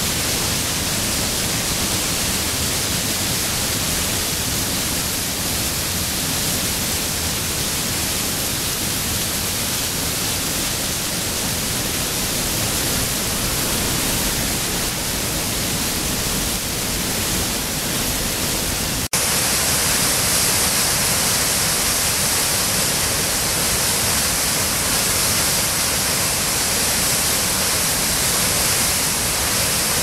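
Waterfall rushing, a steady wash of falling water. About 19 s in it changes abruptly to a closer, louder and hissier fall.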